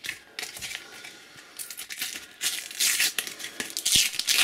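A Panini sticker packet being torn open by hand and its wrapper crinkled, a run of rustling, tearing bursts that grows louder in the second half.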